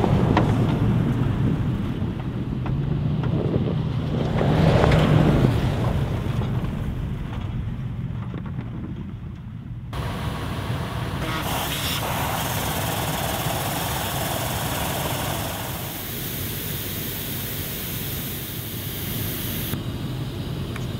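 A vehicle driving, its engine and tyres running steadily with a low rumble. About halfway through, the sound switches abruptly to a brighter, even hiss of road or wind noise.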